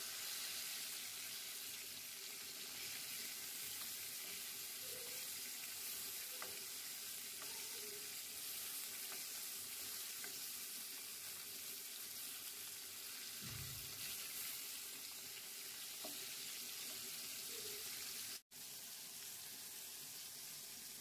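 Pangas (pangasius catfish) steaks shallow-frying in hot oil in a pan: a steady sizzle that briefly cuts out near the end.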